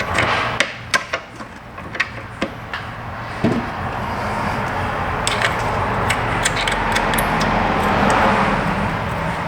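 Scattered sharp clicks and knocks of hand tools and metal fittings while A/C line connections are being fitted and tightened. A steady rushing noise swells in the middle and fades slightly near the end.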